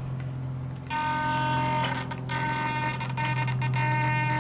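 KST X10 Mini digital wing servo powered from a servo tester, holding the aileron at its centre position with a steady whine. The whine starts about a second in, with a few brief dropouts.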